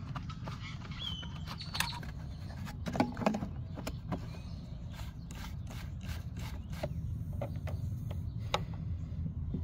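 Scattered metallic clicks and taps from a hand tool tightening the nuts that hold the carburetor on a walk-behind lawnmower engine, over a steady low hum.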